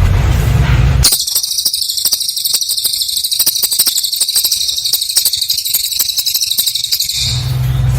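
Cililin songbird giving a high, buzzy, very fast trill that starts suddenly about a second in and stops about six seconds later, with a low rumble before and after.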